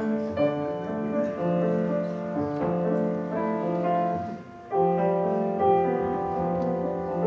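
Solo grand piano playing slow, sustained chords, a new chord struck about every second. The playing eases briefly a little past halfway, then comes back in with a loud chord.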